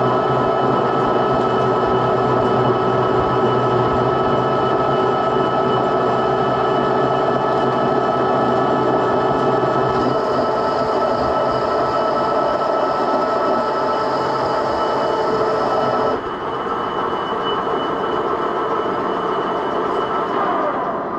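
Metal lathe running under power feed, gears whining steadily over the noise of the cut. About sixteen seconds in the higher hiss stops and the level drops, and the machine runs on more quietly.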